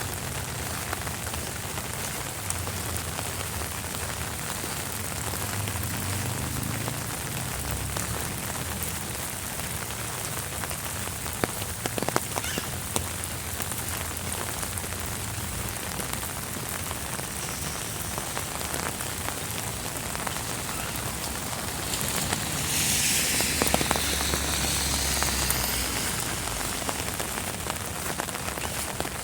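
Steady rain falling, with a few sharper drop taps about twelve seconds in. A louder rushing swell comes in for a few seconds near the end, then fades back into the rain.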